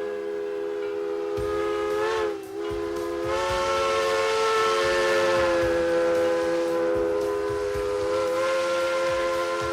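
Multi-chime steam whistle of 4-8-4 Northern locomotive No. 6325 blowing a long blast, a chord of several steady tones. It dips in pitch and breaks briefly about two seconds in, then sounds again and holds, over a hiss of steam and low knocks.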